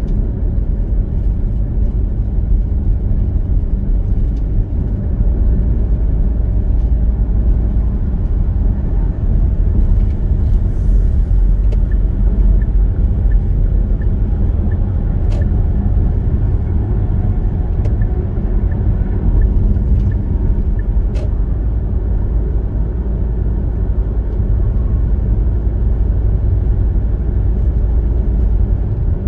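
Car driving at highway speed: a steady low rumble of road and engine noise heard from inside the cabin, with a few faint clicks.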